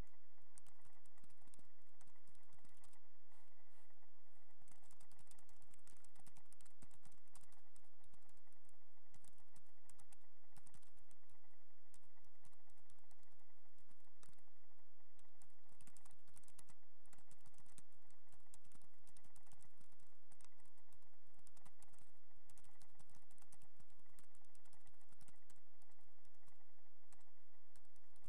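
Computer keyboard typing: a steady stream of irregular key clicks with brief pauses, over a faint steady high tone.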